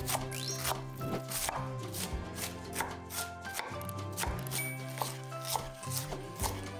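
Kitchen knife shredding white cabbage on a wooden cutting board: a steady run of crisp slicing strokes, about two to three a second, each ending in a tap on the board. Background music with sustained notes plays underneath.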